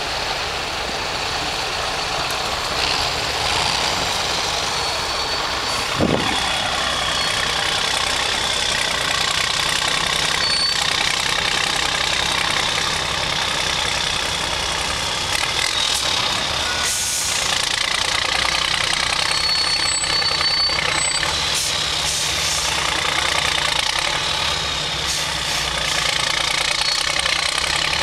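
Heavy off-road trial truck's diesel engine running steadily as the truck crawls over a rough dirt section, with a steady high whistle over it. A single sharp click about six seconds in.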